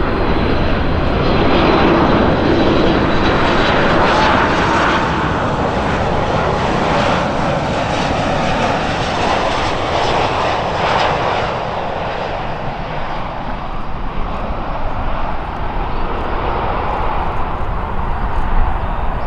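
Boeing 737 MAX 8 airliner's CFM LEAP-1B turbofan engines on final approach and landing: a loud, steady jet roar with a faint whine, loudest in the first few seconds and easing off in the second half.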